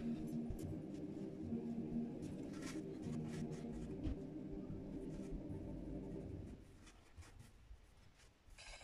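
Cotton T-shirt fabric rustling and brushing against the wooden screen-printing platen as it is pulled over the board by hand, with scattered short scuffs, over a steady low hum that drops away about two-thirds of the way through.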